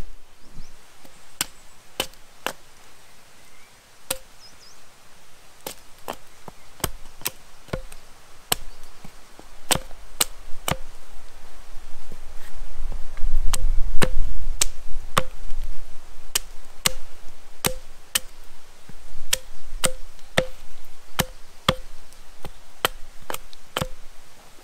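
Wood being chopped with an axe or hatchet: a steady series of sharp strokes, about one to two a second, each with a short ring. A low rumble swells and fades in the middle.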